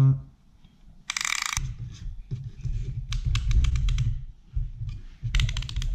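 Piston ring compressor being ratcheted tight around a piston to squeeze its rings, its pawl clicking in three quick runs: about a second in, around three seconds, and near the end. Low rubbing and handling noise of the metal band on the piston runs between them.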